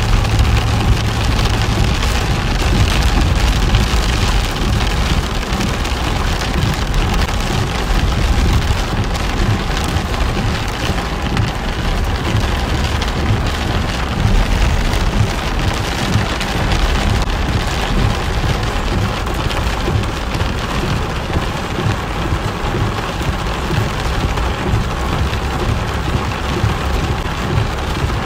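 Heavy rain pelting the roof and windshield of a moving car, heard from inside the cabin as a dense, steady hiss of drop impacts over a low rumble of the car on the wet road.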